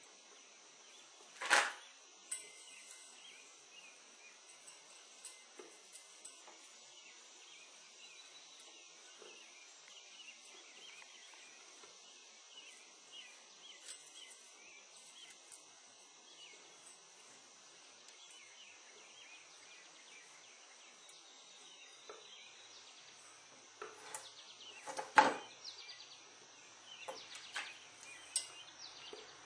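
Small fireworks going off: one sharp bang about a second and a half in, then a run of bangs and pops near the end, the loudest among them. Between them, a steady high insect chirring with scattered bird chirps.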